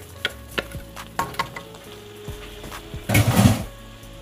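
Slotted wooden spatula stirring vegetables in tomato sauce in a skillet, with scattered light clicks and scrapes against the pan. A louder, muffled bump lasting about half a second comes a little after three seconds in.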